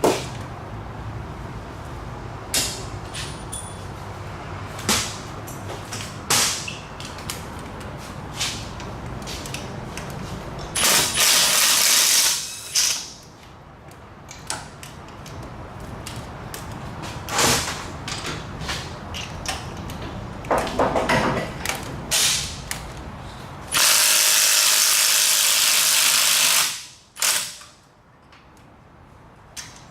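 Hand tools clicking and knocking at metal, with two loud runs of a power tool, each a few seconds long, around the middle and near the end, while broken exhaust manifold bolts are worked out.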